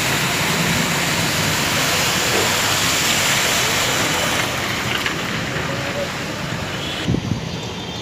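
A car driving slowly through floodwater, its tyres pushing and splashing the water in a steady rushing wash that is loudest as it passes close, then falls away about seven seconds in, followed by a few short knocks.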